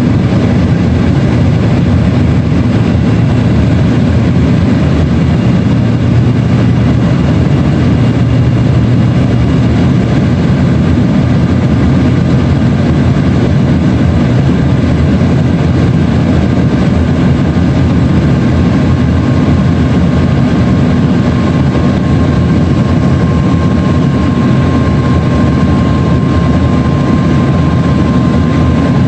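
Steady, loud cabin roar of an Embraer ERJ-135 regional jet in flight: turbofan engine noise and airflow heard from inside the cabin. A faint steady whine rides on top and grows a little stronger in the last several seconds.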